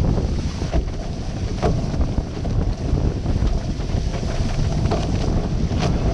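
Wind buffeting the microphone of a camera on a racing catamaran's bowsprit as the boat sails fast under spinnaker, over water rushing past the hulls. A few sharper splashes of spray come through.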